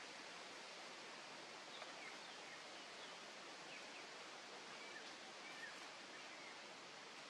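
Faint outdoor ambience: a steady hiss with several faint, short, high chirps scattered through it.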